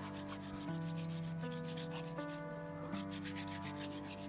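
Hand sanding of a carved wooden spoon: sandpaper on a small block rubbed back and forth over the wood in quick scratchy strokes, several a second. Soft music with held notes plays underneath.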